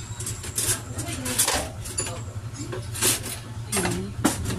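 A metal utensil clinking and scraping against a frying pan heaped with sautéing water spinach, then a metal lid set down on the pan with several sharp clinks.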